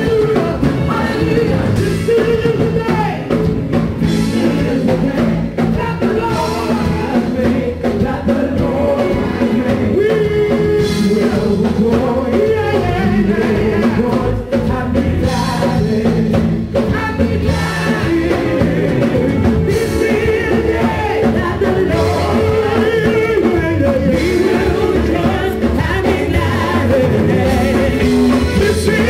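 Live gospel music: a male lead singer with backing vocalists over a band of keyboards, synth bass, drums and lead guitar, playing without a break.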